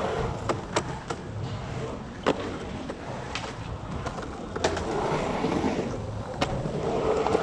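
Skateboard wheels rolling and carving on the smooth concrete of a pool bowl, a continuous roar that swells as the rider passes close, with several sharp clacks from the board and trucks.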